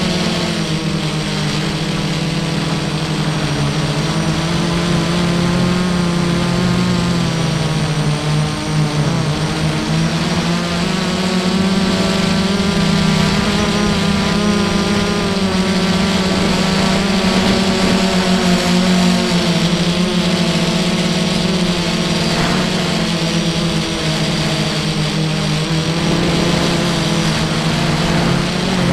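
Armattan FPV quadcopter's electric motors and propellers, heard close up from the aircraft's own onboard camera, buzzing steadily in flight. The pitch wavers up and down as the throttle changes.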